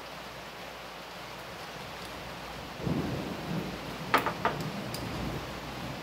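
Steady hiss of rain, with a low rumble of thunder building from about halfway through. A few sharp clicks come near the two-thirds mark.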